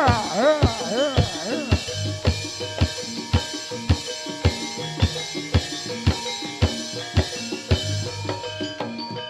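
Live Javanese dance-accompaniment music: drum strokes keep a steady beat about twice a second under ringing pitched notes. During the first second or so a tone swoops up and down a few times, then fades away.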